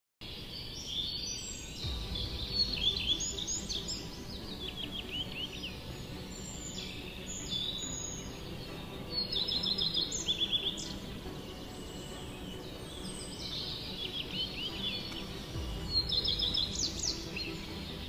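Songbirds singing in woodland: quick chirps and short descending trills, repeated in phrases every few seconds, over steady low background noise.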